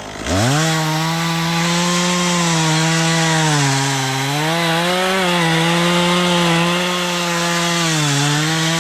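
Two-stroke chainsaw revving up from idle and running at full throttle through a cut in a thick oak. Its pitch sags briefly twice as the chain bogs under load.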